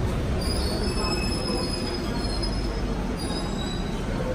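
Bucharest Metro train pulling into the station with a low rumble and a high metallic squeal in several steady tones. The squeal starts about half a second in and fades out at about three and a half seconds.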